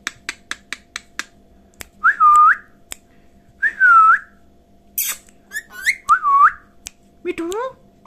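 Rose-ringed (Indian ringneck) parakeet clicking rapidly, about five clicks a second, then whistling three times. Each whistle dips in pitch and then holds. A short high screech comes between the second and third whistle, and quick rising chirps come near the end.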